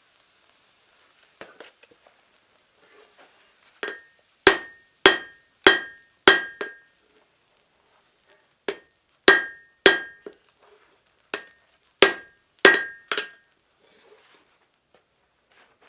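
Hand hammer striking steel on an anvil in three short bursts of quick blows, about two a second. Each blow leaves a brief metallic ring.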